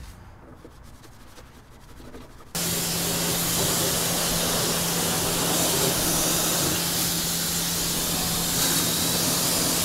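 Pressure washer jet spraying water onto the engine bay, starting suddenly about two and a half seconds in and then running steadily as a loud hiss with a steady hum under it.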